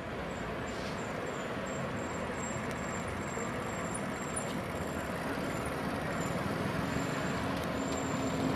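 Steady noise of road traffic, with no single vehicle standing out.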